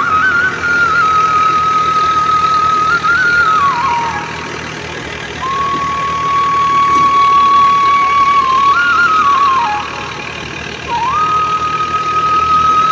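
Tractor-powered wheat thresher running steadily under a loud melodic line of background music, whose long held notes step up and down in pitch and break off twice.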